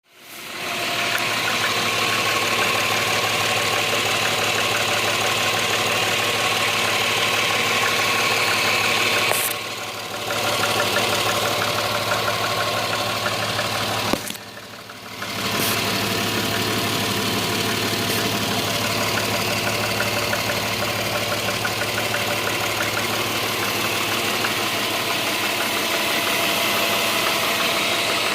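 Subaru EZ30 3.0-litre flat-six engine idling steadily with a fast, even knock (стук) ticking over its running note; the sound dips briefly twice.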